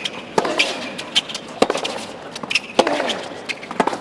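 Tennis ball struck back and forth by racquets in a baseline rally on a hard court: four sharp hits, a little over a second apart.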